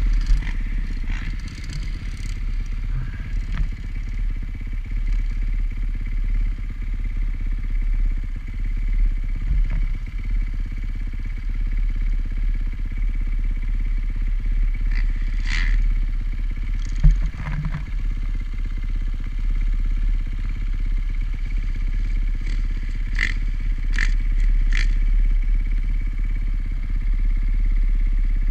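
Dirt bike engine running steadily as the bike is ridden over a motocross track, with a heavy low rumble throughout. A handful of sharp clicks and knocks come about halfway through and again near the end.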